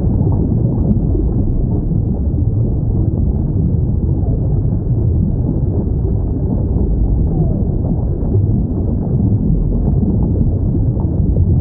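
Underwater whale recording: a steady low rumble with a few faint, brief whale calls gliding in pitch.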